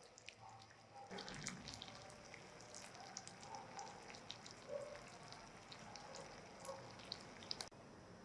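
Sugar syrup boiling in a small nonstick saucepan as it cooks toward caramel: a faint, irregular crackle of bubbles popping. It starts about a second in and stops abruptly near the end.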